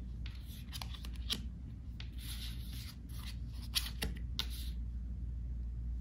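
Cards of a deck being handled and flipped through: faint rustles and soft slides of card against card, with a scattering of light clicks.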